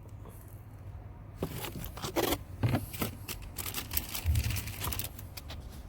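Crinkling, rustling and tearing as a new cabin air filter is handled and unwrapped from its plastic packaging, in irregular bursts after a short quiet start, with a soft thump near the end.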